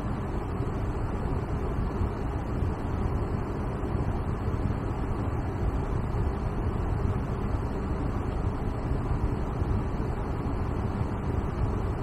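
MINI Cooper's air-conditioning blower running, a steady rush of air from the dashboard vents heard inside the car's cabin.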